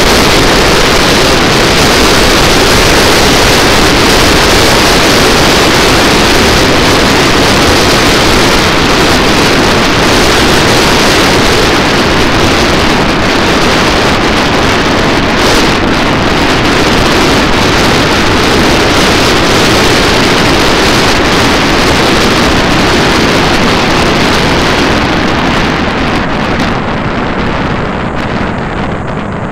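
Steady loud wind rush on the microphone of a moving motorcycle, mixed with road noise. It eases and thins out near the end as the bike slows behind traffic.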